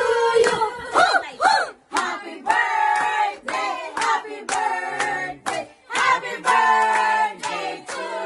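A small group of people singing together, clapping along in time.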